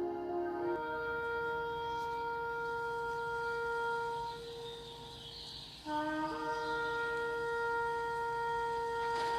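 Shofar (ram's horn) blown in long blasts: a lower note jumps up to a long held note that fades out about 5 s in, then a second blast about 6 s in starts on a short low note and leaps to another long held note.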